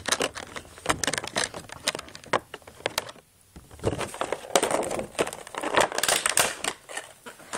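Close-up handling noise: irregular clicks, knocks and crinkling rustles as the recording device is set down and moved about, with a short quiet moment about three seconds in.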